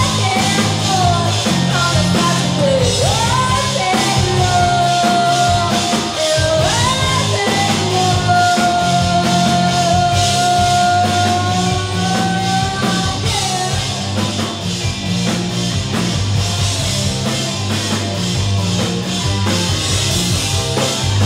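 Live rock band playing loudly: drum kit, bass and electric guitars, with long held high notes that slide up into pitch over a repeating low bass line.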